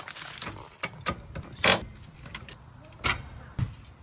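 Scattered metallic clinks and knocks of tools and parts being handled during exhaust work, the loudest about one and a half seconds in.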